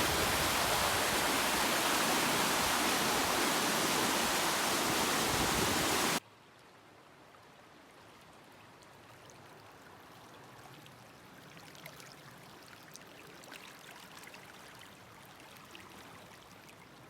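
Creek water rushing close by, a loud steady noise, which cuts off abruptly about six seconds in. What follows is much quieter, with faint scattered clicks.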